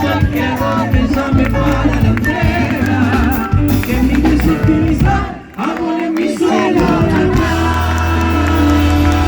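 Live concert music: a singer with a band, the voice gliding over the accompaniment. The sound dips briefly about five and a half seconds in, then returns with long held notes.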